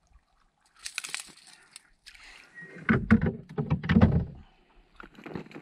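Handling noise in a boat: a short clicking rattle about a second in, then a run of heavy thumps and knocks for about two seconds.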